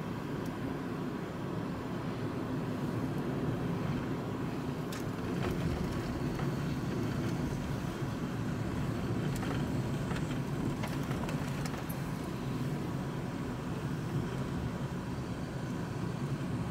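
Electric car driving along a paved road, heard from inside the cabin: steady low tyre and road noise with a faint steady high tone, and a few light clicks and ticks partway through.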